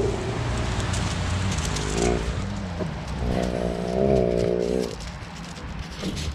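Sled-dog huskies vocalising: a short whine about two seconds in, then a longer wavering whine-howl of more than a second. Both run over a steady low rumble.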